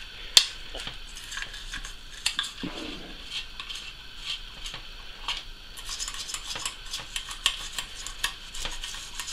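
Toothbrush bristles scrubbing inside the plastic impeller housing of an aquarium powerhead, a rapid, irregular scratching and clicking, with one sharp click about half a second in.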